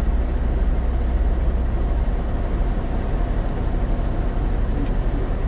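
Steady low rumble of a semi truck's diesel engine idling, heard from inside the sleeper cab.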